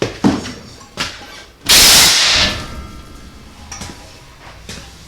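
A few knocks, and a short loud blast of hissing compressed air about two seconds in that lasts under a second, as air goes into the ATV's tire.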